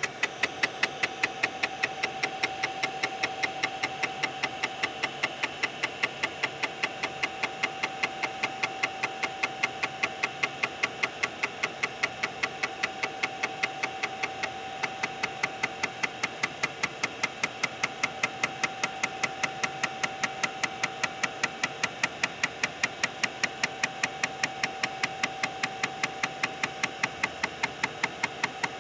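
An IBM PS/2 Model 30's 3.5-inch 720K floppy drive running a diagnostic seek test: the head stepping back and forth with a steady hum and regular knocks, about four a second.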